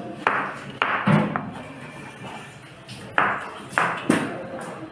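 Chef's knife cutting a peeled potato on a plastic cutting board, the blade knocking sharply against the board with each cut: three chops in the first second or so, then three more a little after three seconds in.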